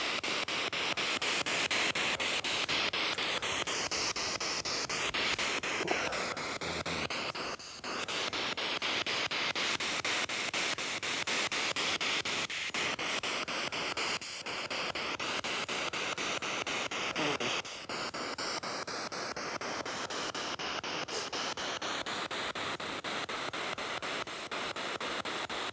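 SP7 spirit box sweeping through radio frequencies: a steady hiss of static that briefly drops out four times.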